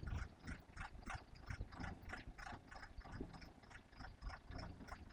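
Diesel-powered concrete mixer pump running, a low rumble with a steady mechanical clicking about four times a second.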